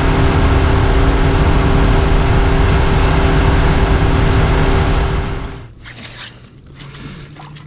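Mercury outboard motor running steadily at speed, with the rush of wind and water over a moving skiff. About five and a half seconds in it stops abruptly, giving way to much quieter small knocks and handling sounds.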